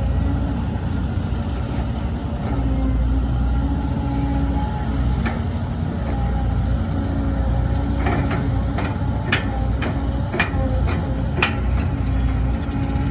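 Volvo EC200D excavator's diesel engine running steadily under work, with a run of sharp knocks from about eight seconds in, closely spaced and spread over about four seconds.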